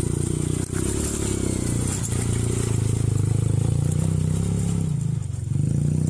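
Sport quad bike (ATV) engine running under load as it climbs a steep dirt slope, its pitch dipping briefly near the end before it picks up again.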